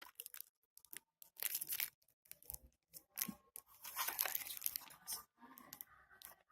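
Packaging rustling and crinkling in short, irregular, fairly quiet bursts as a phone charger is taken out of its box.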